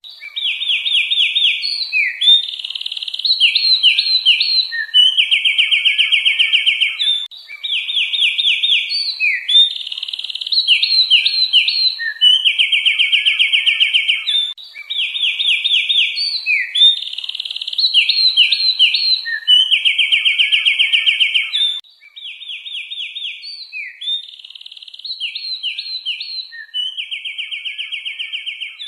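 Songbird singing a phrase of rapid chirps and buzzy trills, repeated over and over about every seven seconds; the song drops in level about 22 seconds in.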